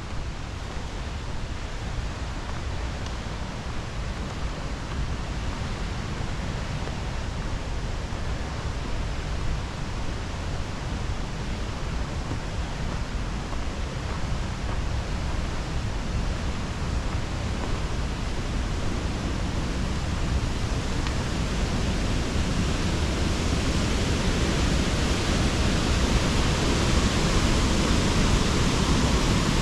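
Rushing water of a cascading mountain waterfall and its creek: a steady rush that grows louder over the second half as it comes nearer.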